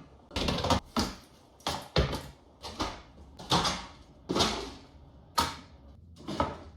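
Irregular series of bangs and knocks, about a dozen of them at roughly two a second, each ringing briefly after the hit.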